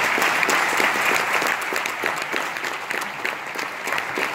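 Audience applauding steadily: many hands clapping in a hall.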